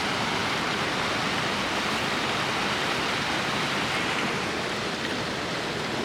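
Steady rushing of a river waterfall pouring into a deep pool, an even roar of water.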